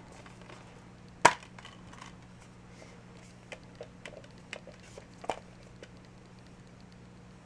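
A Blu-ray steelbook case being handled: one sharp click about a second in, then a run of lighter clicks and taps and another sharper click, over a steady low electrical hum.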